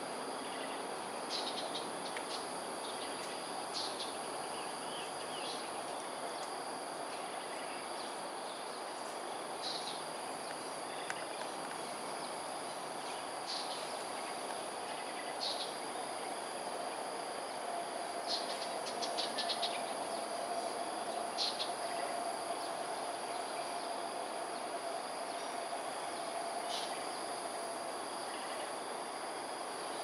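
Steady high-pitched drone of insects, with short high chirps every few seconds and a quick cluster of them about two-thirds of the way in. A faint steady hum sounds through the middle stretch.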